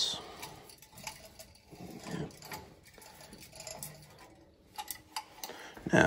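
Quiet scattered clicks and light metallic rattles as a steam boiler's pressuretrol is turned by hand and unscrewed from its pigtail.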